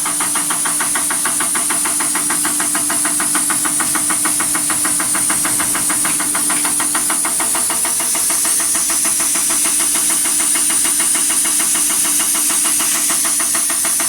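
DAF 105 diesel injector firing rapidly and steadily, about eight sharp clicks a second, over a strong hiss of sprayed fuel and a steady hum.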